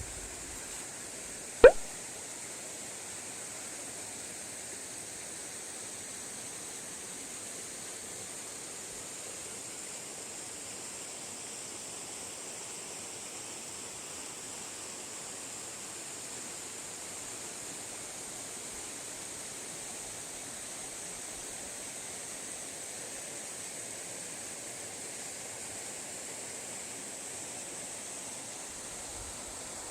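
Steady rushing of a clear mountain valley stream, with one sharp, loud knock or plop a little under two seconds in.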